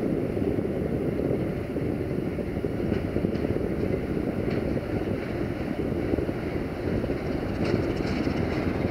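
Electroputere 060-DA diesel-electric locomotive with its Sulzer diesel engine running steadily as it hauls a freight train slowly across the points. A few light clicks come from the track about three seconds in and again near the end.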